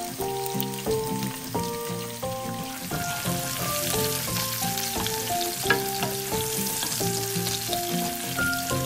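Sliced onion sizzling in hot oil in a frying pan while a wooden spoon stirs it, with the sizzling growing stronger about three seconds in. Background music with a light melody of single notes plays throughout.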